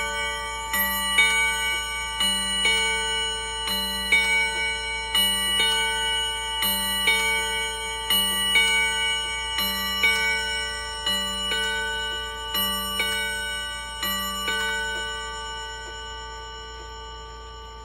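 Elgin battery quartz mantel clock striking on physical chime rods: pairs of ringing strikes about every second and a half, then the rods ring out after the last pair, near the end.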